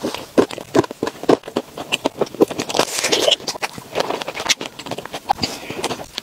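Close-up eating sounds: biting, crunching and chewing through a chocolate-glazed donut and chocolate-dipped strawberries crusted with crushed nuts, a dense run of crisp crackling bites.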